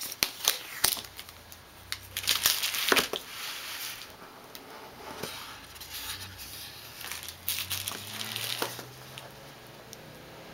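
Tape peeled off the end of a cardboard phone box, with crinkling, taps and scrapes as the box is handled and its lid lifted off. The busiest, loudest stretch is in the first three seconds; after that come sparser scrapes.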